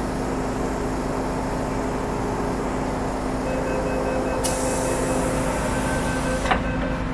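Interior of a Metro-Cammell M-Train electric multiple unit running in a tunnel: a steady low rumble and hum. Partway through a few steady whining tones come in. A high hiss starts about halfway and cuts off with a click near the end.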